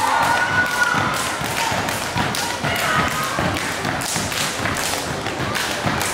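A step team stepping: rapid, rhythmic foot stomps and hand claps.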